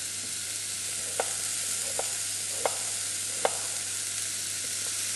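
Sliced leek, onion and garlic sizzling steadily in olive oil in a saucepan. Over the sizzle, a kitchen knife cuts through a raw potato onto a wooden chopping board with four sharp knocks, a little under a second apart, and a few fainter taps near the end.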